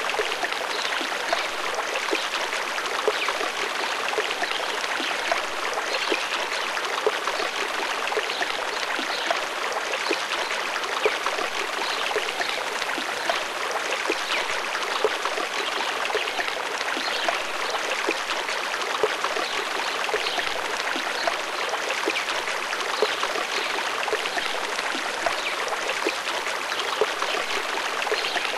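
Running water of a stream, a steady babbling with many small splashes and trickles.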